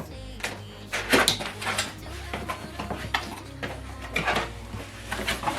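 Soundbar box and its packaging being handled and opened: an irregular run of scrapes, rustles and knocks.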